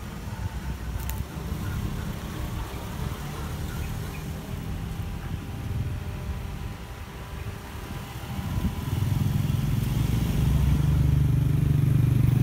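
Road traffic: a motor vehicle's engine running close by, turning into a steady low hum that grows louder from about nine seconds in.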